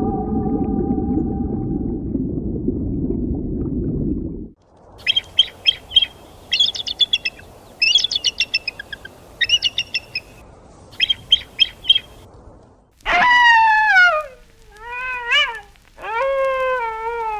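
A steady rushing noise cuts off about four seconds in. Small birds then chirp in quick rattling bursts for several seconds, followed by three drawn-out animal calls that each fall in pitch.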